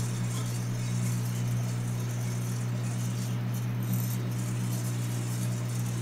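Microwave oven running with a plasma ball burning inside: a steady low electrical hum with a faint rattling buzz over it.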